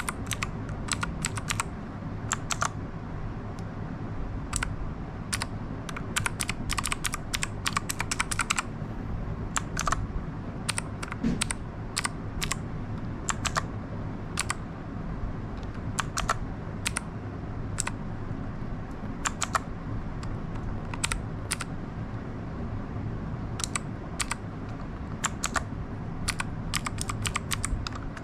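Keys of a Royal Kludge RK61 60% mechanical keyboard being pressed, clacking in irregular runs of quick keystrokes with short pauses between them, over a steady low background hum.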